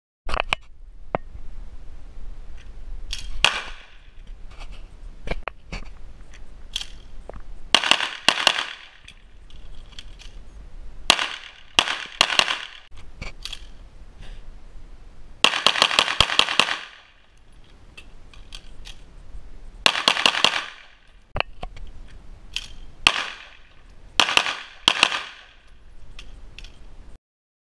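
Handgun shots fired in a series, some singly and some in quick strings, each with a short ringing tail.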